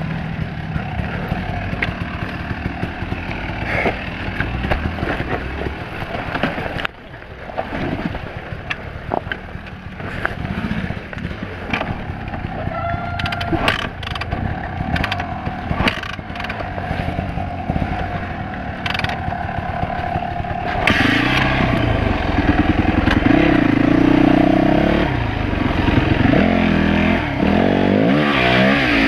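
Yamaha four-stroke single-cylinder dirt bike engine running under way, its revs rising and falling with the throttle, mixed with knocks and clatter from the bike over rough ground. It drops briefly about a quarter of the way in and runs louder and harder over the last third.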